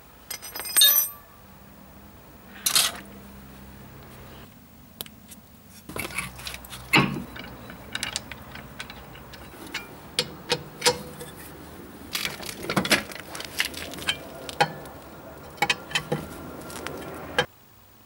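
Metal hand tools clinking and clattering on car parts: a string of sharp clinks and ticks, several of them loud, including a cross lug wrench turning on the wheel bolts.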